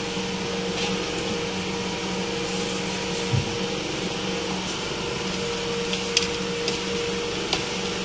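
A steady electrical hum from a running motor-driven appliance, with faint soft clicks and rustles from hands rubbing salt into halved bitter gourds.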